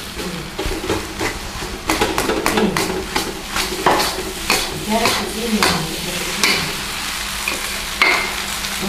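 Spatula scraping and knocking against a metal pan as fried rice is stir-fried, several strokes a second, over a steady sizzle.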